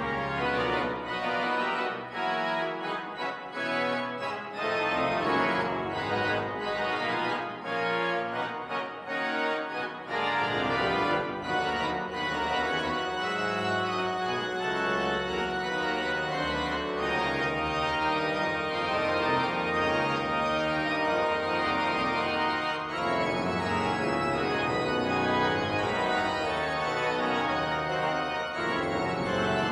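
Pipe organ playing a solo piece: sustained chords on the manuals over pedal bass notes.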